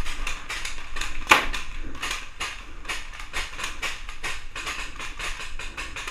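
Paintball markers firing in quick, irregular pops, several a second, with one louder shot about a second in.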